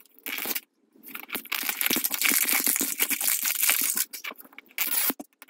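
The label wrap being peeled and torn off a Zuru Mini Brands plastic capsule ball: a short rustle, then about three seconds of dense crinkling and crackling, and a brief rustle near the end.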